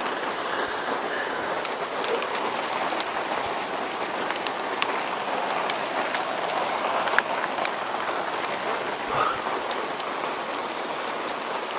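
Hail falling steadily: a dense, even hiss of hailstones landing on the ground and nearby surfaces, with scattered sharp ticks.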